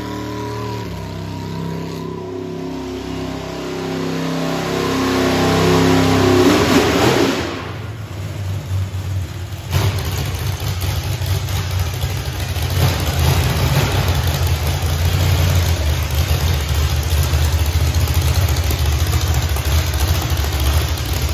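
Burnout car engine with open upright exhaust stacks, revving while spinning its tyres and climbing to a loud peak about seven seconds in before dropping off. From about ten seconds in it idles with a loud, choppy low rumble.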